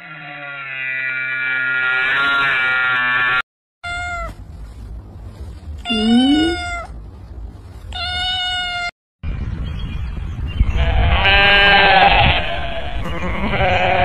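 A long, low animal call, then, after a cut, kittens meowing three times, the middle meow rising in pitch. After another cut comes a bleat-like call over rustling noise.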